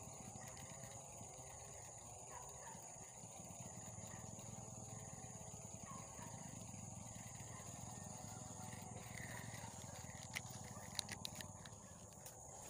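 Faint steady high-pitched insect buzzing in a swamp, over a low background rustle, with a few sharp clicks about ten seconds in.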